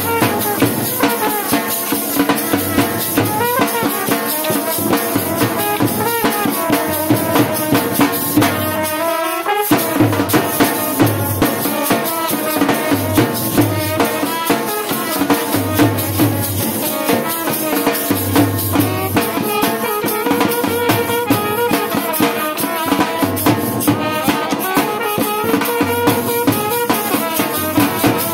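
Live folk dance music: a melody over a steady drum beat, with sharp regular clacks of the dancers' short wooden sticks striking together.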